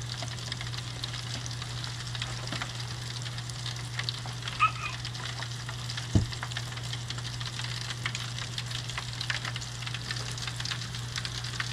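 Battered fish fillets frying in hot grease, a steady crackling sizzle full of fine pops, over a steady low hum. A single knock comes about six seconds in.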